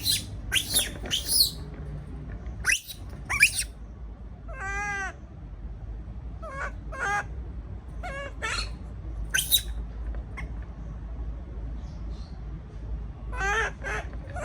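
Baby monkey crying out in a series of short, shrill, high-pitched calls, with one longer, wavering call about five seconds in: distress calls of a young monkey left alone.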